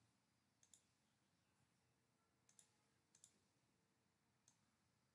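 Near silence, with a few very faint clicks of a computer mouse, some of them doubled.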